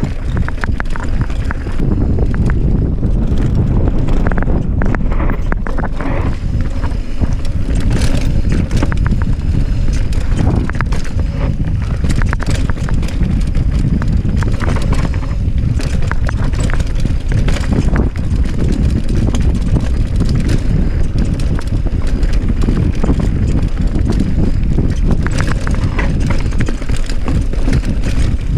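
Mountain bike riding down a rough trail: constant rattling and clattering of the bike and tyres over rocks and roots, under steady wind rumble on the microphone.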